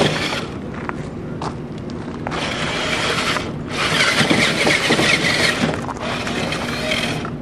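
Small excavator robot's electric drive running in two long grinding, hissing bursts over a steady low hum, with a few faint clicks before them.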